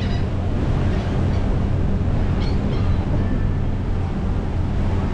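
Cruise ship under way: a steady low hum from the ship's machinery under a rushing wash of wind and water.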